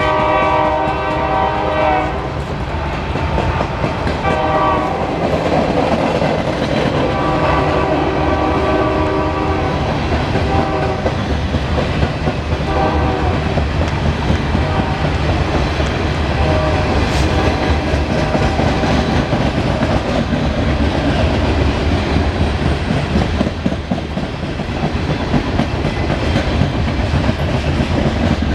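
Loaded coal hopper cars rolling past with a steady low rumble and clicking over the rail joints. A train horn sounds in several blasts, some long and some short, over the first two-thirds or so.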